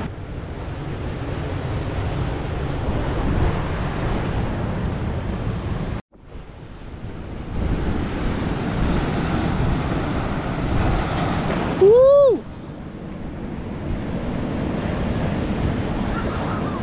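Ocean surf breaking and washing over a boulder shoreline, a steady rushing that cuts out briefly about six seconds in. About twelve seconds in, a short, loud call rises and falls in pitch for about half a second, the loudest sound here.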